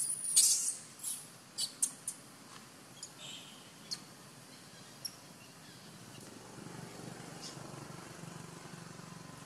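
Macaques screaming in a brief scuffle, loudest in the first second, then a run of short, sharp, high squeaks that thin out over the next few seconds. A faint low hum comes in after about six seconds.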